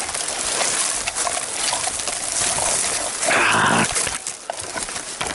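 Rustling and crackling from moving through dry brush and leaf litter, with scattered small clicks and knocks. A louder scraping rustle comes about three seconds in.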